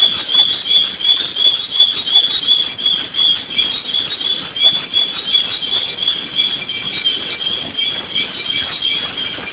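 Multi-spindle drilling machine drilling holes in a brake drum: a loud, high-pitched squeal of the drills cutting metal, pulsing rhythmically a few times a second over a steady machining noise.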